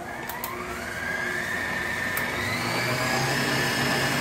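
Electric stand mixer starting up after a couple of clicks, its motor whine rising in pitch over the first two seconds or so and then running steady as it creams butter and sugar.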